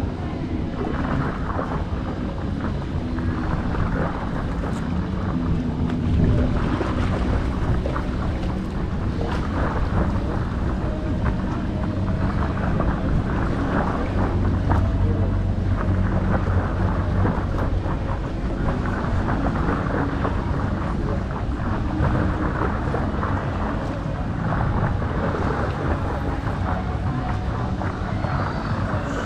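Wind buffeting a microphone mounted at water level on a paddleboard's nose, a steady low rumble, with water lapping and splashing against the board.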